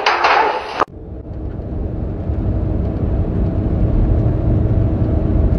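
Steady low rumble of a moving vehicle heard from inside its cabin, with a faint steady hum, fading up about a second in after a brief loud noisy sound cuts off.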